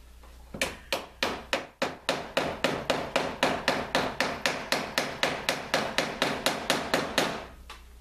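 Hammer tapping on the cedar planking of a canoe hull: a few slower strikes, then a steady run of quick, light taps at about five a second, which stops shortly before the end.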